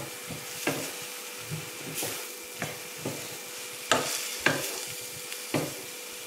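Chopped onions and tomatoes with freshly added spice powders sizzling in a stainless steel frying pan while a spatula stirs them in, with irregular scraping knocks of the spatula against the pan.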